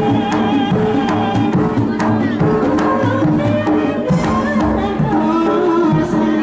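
Jaranan accompaniment music: hand drums beating a steady pattern under a sustained, wavering melody line.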